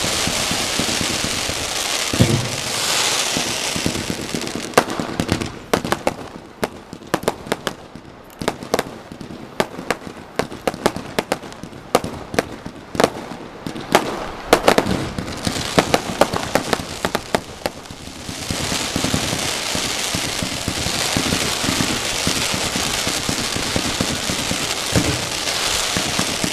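Aerial fireworks going off: a dense crackling at first, then a long run of sharp bangs in quick succession, then dense crackling again.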